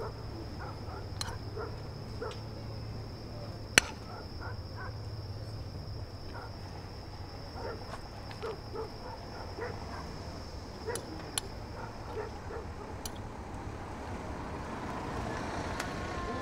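Night street ambience: a steady low hum under scattered faint short calls, with a thin high whine that stops near the end. A few sharp clicks, the loudest about four seconds in.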